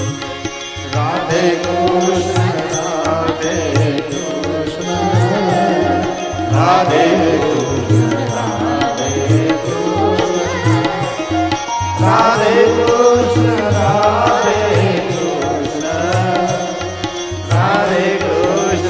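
Indian devotional song: a voice sings long, wavering phrases over a steady drum beat of about two strokes a second, with a new phrase beginning every five or six seconds.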